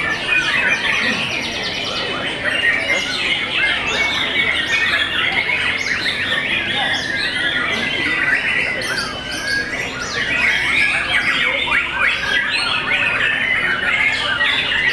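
White-rumped shama (murai batu) singing a continuous, dense stream of rapid, varied whistles and chirps.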